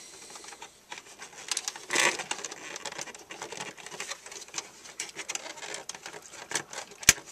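Plastic fan assembly being wiggled and pushed into its bracket in a desktop computer's metal case: a run of small plastic clicks and rattles, a louder scraping cluster about two seconds in, and one sharp click near the end.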